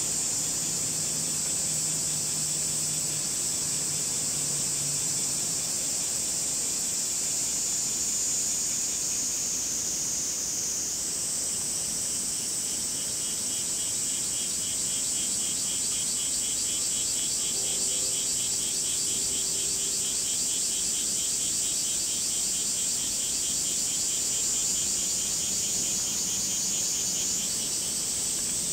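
Cicadas calling: a steady, high-pitched drone throughout, joined about twelve seconds in by a second, rapidly pulsing call lower down that stops shortly before the end, over a faint even hiss.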